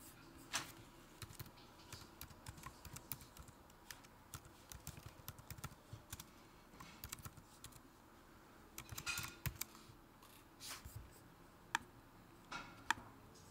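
Faint typing on a computer keyboard: irregular runs of key clicks with short pauses, a few keystrokes louder than the rest.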